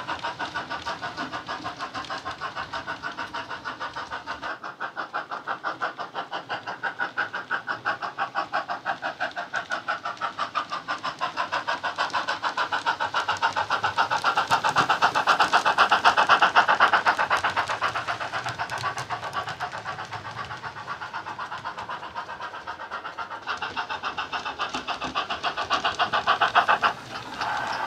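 A model GWR Castle class steam locomotive's DCC sound, a Jamie Goodman sound file on an ESU LokSound 5 decoder, playing a steady run of exhaust chuffs through the model's speaker as it hauls its coaches. The beats grow louder towards the middle and fade again.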